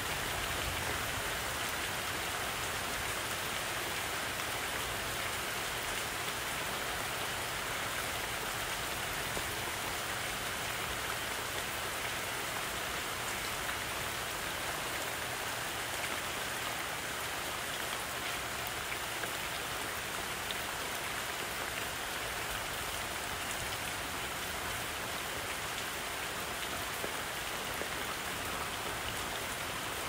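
Steady rain falling on leaves and vegetation, an even unbroken hiss.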